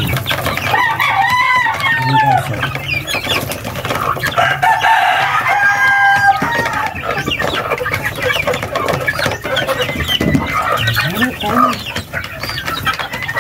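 Chickens clucking and calling as they crowd a feeder, with one longer crow about five seconds in.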